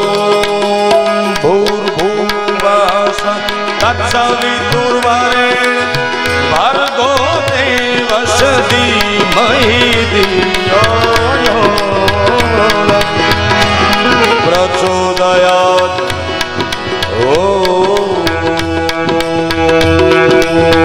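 Live Gujarati devotional bhajan: a male voice singing ornamented, winding melodic runs over a sustained harmonium drone and a steady tabla rhythm.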